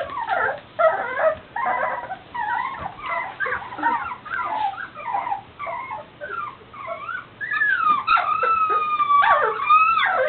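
A litter of young golden retriever puppies whimpering and squealing in many short, high cries, which give way near the end to longer, drawn-out howling whines. The puppies are unsettled by being moved into a new pen.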